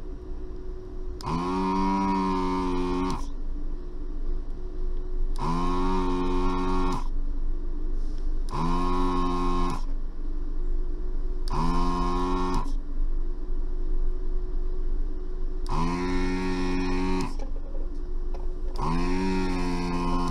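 Hikari HK915 desoldering station's vacuum pump switching on and off six times as the desoldering gun's trigger is pulled, each run a steady pitched hum of one to two seconds that rises briefly as the motor spins up, sucking molten solder from circuit board joints.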